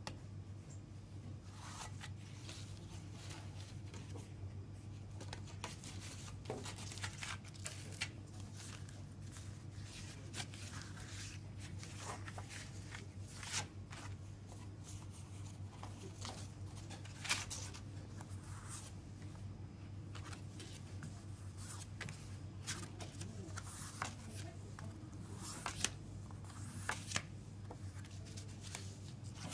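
Hands handling a CD jewel case, its paper booklet and a set of postcards: scattered light plastic clicks and paper rustling and sliding, over a steady low hum.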